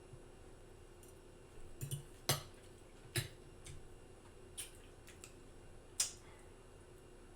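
Close-miked eating: chewing with several sharp, wet mouth smacks and clicks at irregular intervals.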